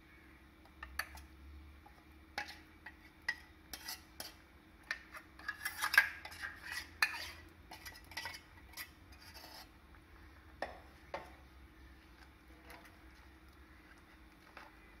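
Steel ladle scraping and knocking against a steel vessel as thick ground coconut paste is scraped out into a clay curry pot, then stirring in the pot. It comes as a run of irregular clicks and scrapes, loudest around the middle, thinning out after about eleven seconds.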